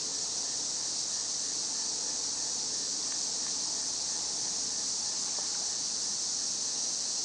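Steady evening insect chorus: a dense, high-pitched shrill with faint regular chirping beneath it.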